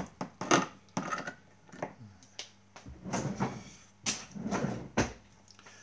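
Irregular knocks, clicks and clatters of kitchen things being handled, like a cupboard or drawer and utensils; the loudest knock comes about four seconds in.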